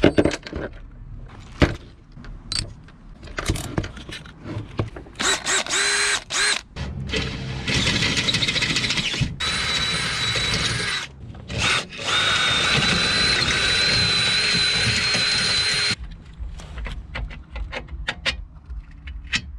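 Cordless drill with a 12 mm twist bit boring through the metal of a car's front underbody, enlarging bolt holes. After a few seconds of clicks and handling, the drill runs in several bursts with a steady whine, the longest about four seconds, then stops.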